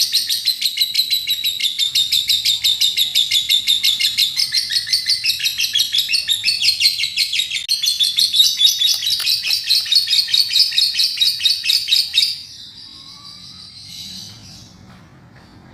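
Lovebird singing its long, fast 'kekek' trill: a rapid run of high chattering notes, several a second, that stops suddenly about twelve seconds in, leaving only faint scattered chirps.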